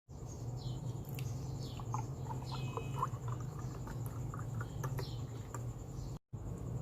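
Light scattered ticking and pattering with several short, high, falling chirps over a steady low hum; the sound drops out briefly near the end.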